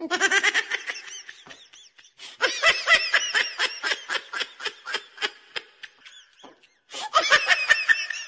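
High-pitched laughter: a long run of quick 'ha-ha' pulses, a short break, then a second, shorter run near the end.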